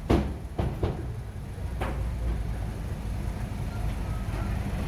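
Bulldozer's diesel engine running steadily with a low drone, with four sharp knocks in the first two seconds.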